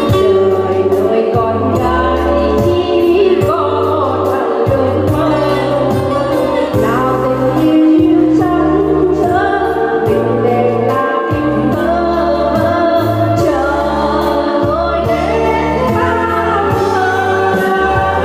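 Two women singing a song together into a microphone over a recorded backing track with a bass line.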